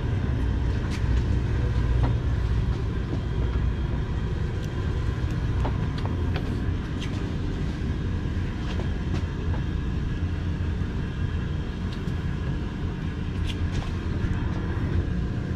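Steady low drone of the sportfishing boat's engine machinery, with a few light clicks and taps scattered through it.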